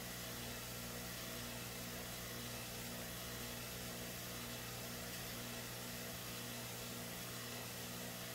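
Steady low machine hum under an even hiss, with no knocks or clicks standing out.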